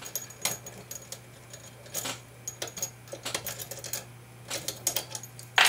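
Irregular small metal clicks and taps from an Ace II tubular vending-machine lock being handled with its key and picking tools. A brighter, louder metallic ring starts just at the end.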